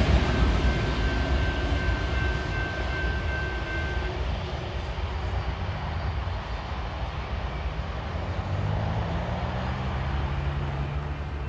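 Train rumbling past and fading into the distance: the wheels of the last tank cars, then the trailing BNSF diesel locomotive, whose engine hum stands out as the train recedes. A thin high whine can be heard for the first few seconds.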